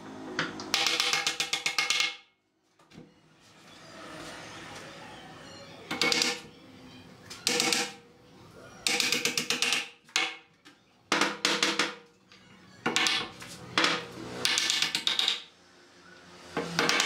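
Claw hammer driving nails into pine boards, in several bursts of quick blows with pauses between them.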